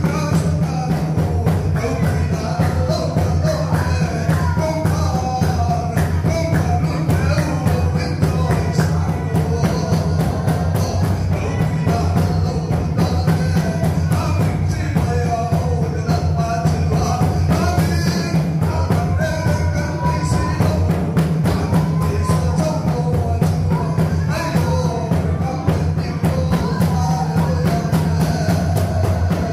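Lively church worship music: voices singing a hymn tune over a fast, steady drum beat and a low bass, with no pause.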